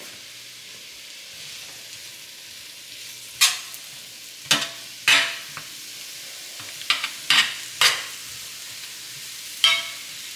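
Sliced mushrooms sizzling steadily in olive oil in a metal skillet. From about three seconds in, a utensil stirring them scrapes and clacks against the pan about eight times, some strokes in quick pairs.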